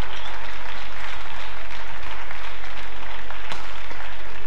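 Arena crowd applauding, a steady wash of clapping, with a couple of sharp racket-on-shuttlecock hits near the end.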